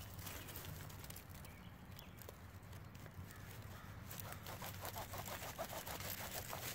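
A Mora Eldris knife sawing through the stem of a large morel mushroom at ground level. The faint, quick scraping strokes begin about four seconds in, at roughly four or five a second, over a low steady hum.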